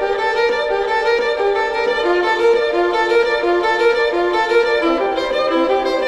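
Music led by a violin playing a quick melody of short notes, the notes coming faster near the end.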